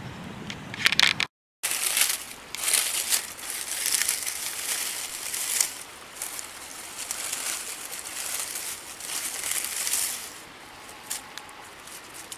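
Dry leaf litter crackling and rustling in irregular bursts as a hand brushes through it at ground level. It is quieter near the end.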